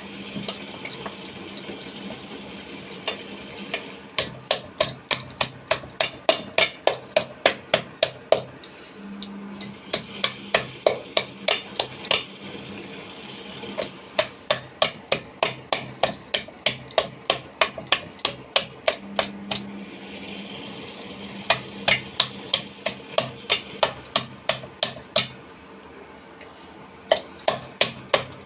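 Jalebi batter being beaten hard in a bowl, the utensil knocking against the bowl about three times a second in runs with short pauses.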